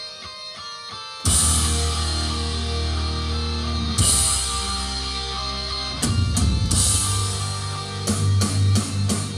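Rock music with electric guitar and drum kit, no vocals. A quiet guitar passage gives way about a second in to the full band crashing in, with cymbal-crash accents a few seconds later.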